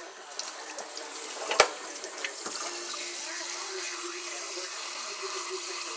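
Kitchen faucet running into a stainless steel sink, with a sharp knock about one and a half seconds in and a smaller one about a second later. A steady hum sets in soon after and carries on under the water.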